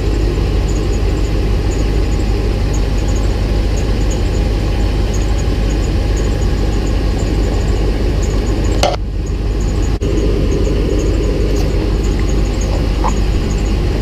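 Vehicle engine idling steadily, with a faint high ticking repeating about one and a half times a second and a brief dip in the sound about nine seconds in.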